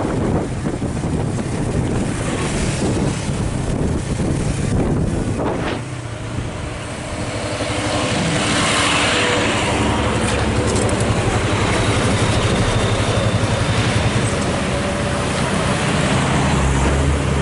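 Heavy truck engine running on a steep mountain road, growing louder from about eight seconds in as a truck draws near.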